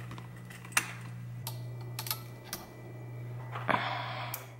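Clothing handled close to the microphone: a quilted jacket rustles briefly about four seconds in, after a few scattered light clicks, over a steady low room hum.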